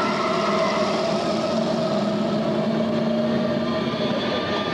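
Test Track ride vehicle running up the hill-climb incline: a steady mechanical hum and rumble with a held low tone.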